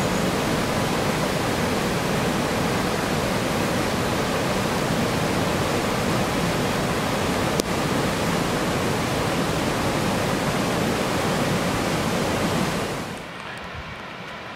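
White-water rapids of a mountain river rushing through a rocky gorge: a steady, loud, even roar of water. About 13 seconds in it becomes much quieter.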